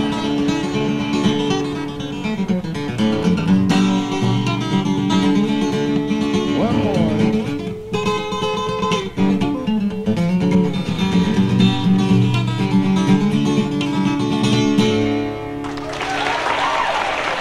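Acoustic guitar playing the closing instrumental of a live song, ending about fifteen and a half seconds in. The audience breaks into applause and cheering near the end.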